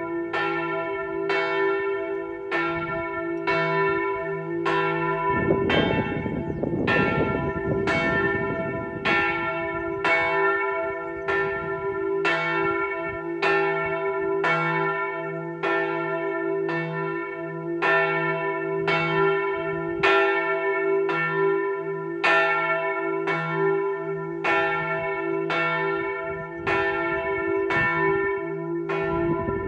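The largest bell of Fiesole cathedral's six-bell Rafanelli ring, tuned to E3, swung full circle (a distesa) for the weekday noon call: its clapper strikes about once a second in an even rhythm, each stroke ringing on into the next.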